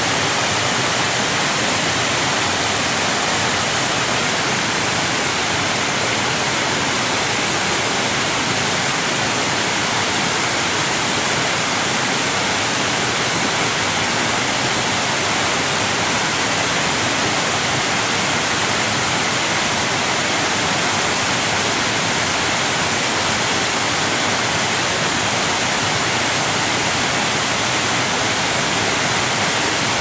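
Waterfall: falling water in a steady, even rush with much hiss, unchanging throughout.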